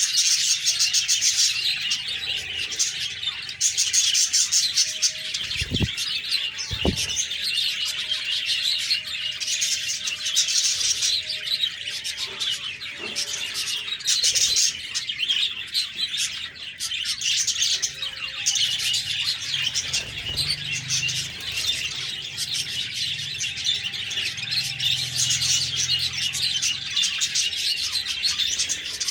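A flock of budgerigars chirping and chattering continuously, with many overlapping high, fast calls.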